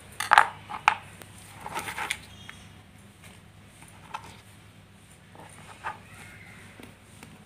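A few short knocks and scrapes of a bottle gourd and a kitchen knife being handled on a cutting board, the loudest knock about half a second in.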